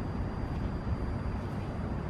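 Pesa Swing tram standing at the stop with its onboard equipment running: a steady low rumble with a faint, thin, high whine held on one note.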